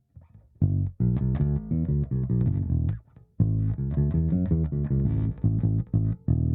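Electric bass played through a Hiwatt Bulldog 440 bass amplifier: a quick line of short plucked notes that starts about half a second in, breaks off briefly near the middle, then carries on.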